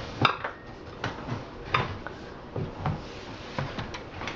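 Irregular small clicks and knocks, about eight of them, from handling a reversible flathead/Phillips screwdriver that has come apart, its bit pulled out of the handle.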